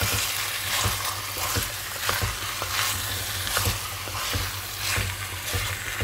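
Pieces of chicken, burger meat and meatballs sizzling in a pan as they are stirred and tossed, with irregular scrapes and knocks of the utensil against the pan about twice a second over a steady sizzle.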